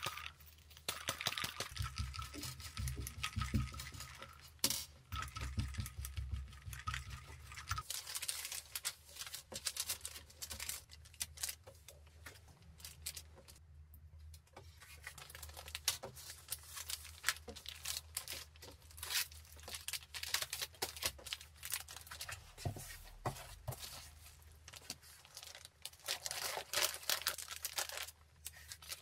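Sticky lint roller run back and forth over a fabric pouch, its adhesive sheet crackling, for the first several seconds. After that come rustling and crinkling of paper cards, plastic bags and bubble wrap handled while packing.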